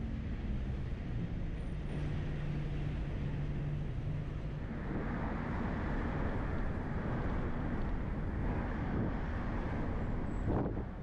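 Road traffic noise while moving along a town road: a steady low rumble of vehicles, with a steady engine hum in the first few seconds, then a louder rushing wind and tyre noise from about five seconds in. A short, louder thump near the end.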